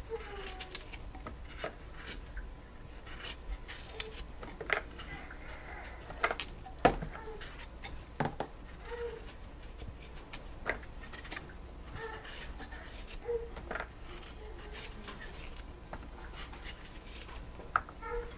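Small kitchen knife peeling and scraping a vegetable by hand over a plastic container: scattered soft scrapes and light clicks, with a couple of sharper knocks in the middle.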